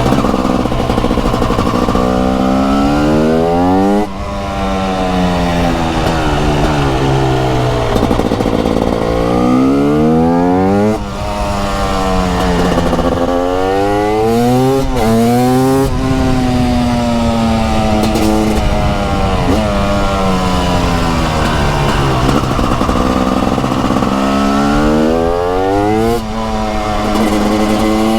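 TM 300 SMR supermoto's 300cc two-stroke single-cylinder engine pulling hard through the gears, its pitch climbing and falling back at each shift. The throttle shuts off briefly about four, eleven and twenty-six seconds in.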